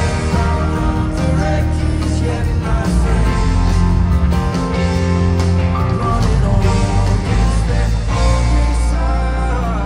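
Live rock band playing through a concert PA, heard from among the audience: electric guitar, bass, drum kit and keyboards with a steady beat.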